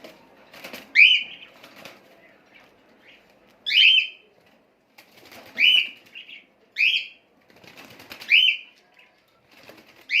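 Pet cockatiel giving short, sharp chirping calls, about six in all, one every one and a half to two seconds. Fainter wing flutters and rustling from the cage come between the calls.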